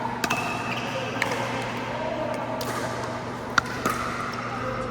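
Pickleball rally: a handful of sharp pops of paddles striking the plastic ball and of the ball bouncing on the court, the loudest about three and a half seconds in, over background voices.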